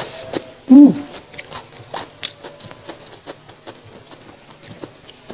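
Close-miked hand-eating sounds: fingers picking at sambal in a stone mortar and pressing rice and noodles on a banana leaf, with many small wet clicks and crackles. A short, loud pitched sound rises and falls about a second in.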